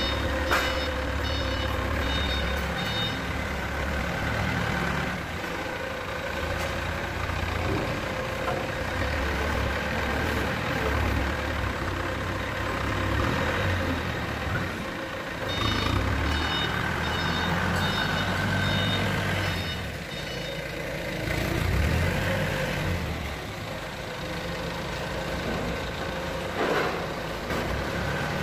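Forklift engine running and working as it loads stacked timber into a shipping container, its reversing alarm beeping in a repeated series near the start and again about midway. A few sharp knocks come through, one just after the start and one near the end.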